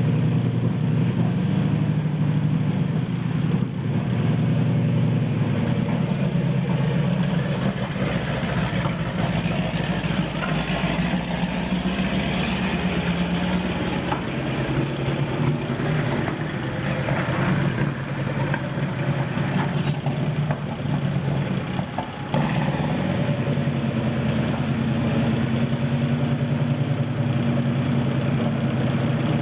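Sherman tank's engine running steadily at low revs as the tank manoeuvres slowly, with a brief dip in level about three-quarters of the way through.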